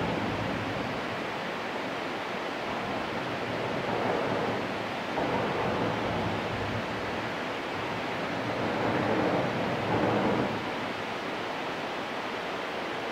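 Steady rushing of water pouring over the spillway, a constant hiss-like roar that grows a little louder about four seconds in and again around nine to ten seconds.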